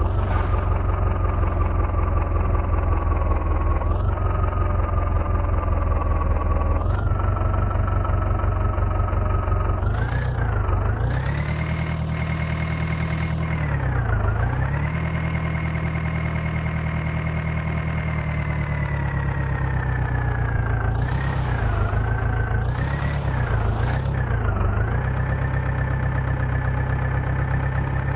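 Diesel engine of a tractor or backhoe loader running steadily at fairly high revs. Its pitch rises in two small steps, then sags and recovers several times, once deeply in the middle and in three quick dips later on.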